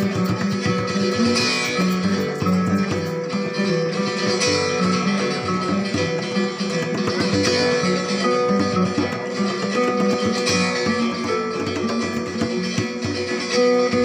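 Live acoustic ensemble playing: strummed and picked acoustic guitar and other plucked strings, with violin and a hand drum.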